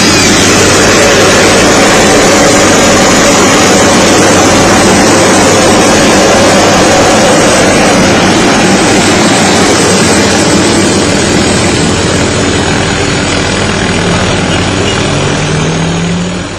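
Loud dubbed-in launch sound effect: a steady, engine-like rush of jet-style noise that slowly fades out over the last few seconds.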